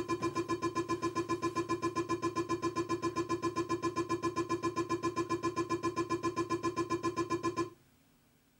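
A rapidly pulsing electronic tone at one fixed pitch, about eight pulses a second, that cuts off abruptly about a second before the end, leaving near silence.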